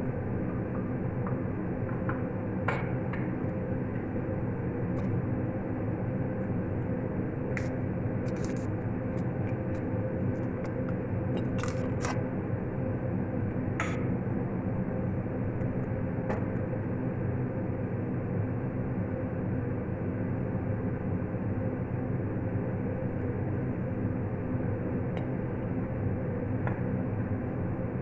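Steady kitchen hum with a constant hiss under it, and a few light clicks and taps scattered through the first half.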